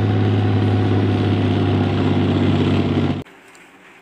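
Military tank's engine running with a low, steady note, cutting off suddenly a little over three seconds in.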